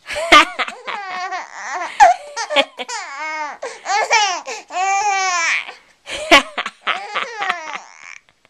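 A baby laughing in a run of high-pitched bursts, with the pitch arching up and down on each one.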